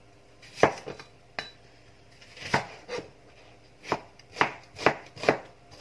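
Kitchen knife slicing through a peeled onion and striking the chopping board: about eight chops, spaced out at first and coming faster near the end.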